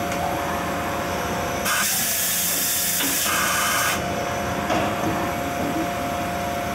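Mazak Integrex 300-IIIS multitasking CNC lathe running an automatic tool change on its milling head: a steady machine whine, with a loud hiss of air about two seconds long near the middle of the change.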